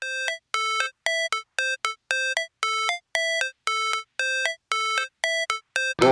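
Background music: a simple electronic melody of short synth notes, about two a second with gaps between them, alternating between two pitches.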